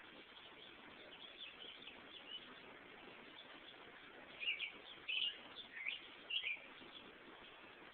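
Birds chirping: a few faint short chirps, then a cluster of louder, quick high chirps a little past the middle, over a faint steady hiss.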